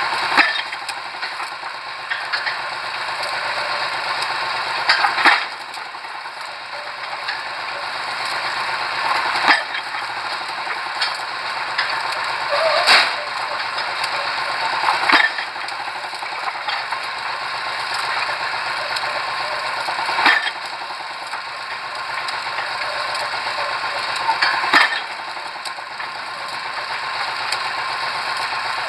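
Pile-driving hammer striking a pile about seven times, with irregular blows every two to five seconds, over the steady running of the rig's engine.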